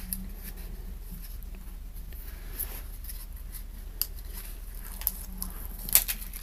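Hands handling a laptop battery and plastic packaging: a few short sharp clicks and taps spread through, the loudest about six seconds in, over soft rustling.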